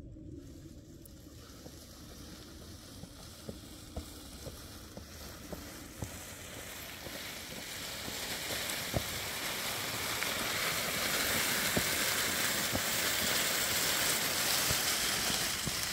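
Footsteps on loose stones, with scattered sharp clicks, under a rushing hiss that grows louder about halfway through and holds until it cuts off near the end.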